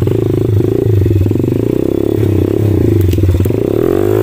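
Small 110 cc pit bike engine running at low revs, with a brief rise and fall in pitch near the end.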